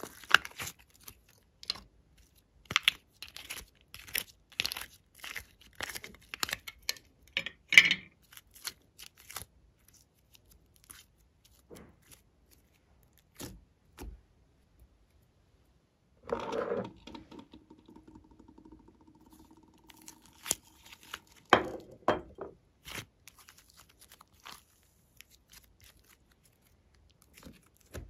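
Soft modelling clay being squeezed and peeled out of a flexible plastic mold: quick sticky crackles and tearing clicks, densest in the first third. A faint steady hum holds for a few seconds past the middle, followed by a few more crackles.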